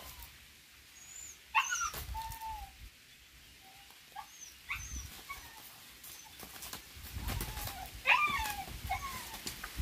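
Several short, high-pitched whimpering animal cries, some sliding down in pitch, with the loudest about one and a half and eight seconds in. Near the end comes a low scuffling flurry as two roosters spar with wings spread.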